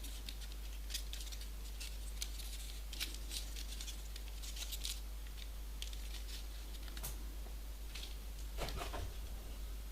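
Faint handling sounds of a small folded-paper origami model: scattered light ticks and soft rustles, with a slightly longer rustle near the end.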